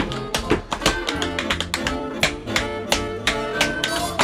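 Tap shoes striking a wooden floor in a fast, uneven run of sharp clicks, over instrumental music.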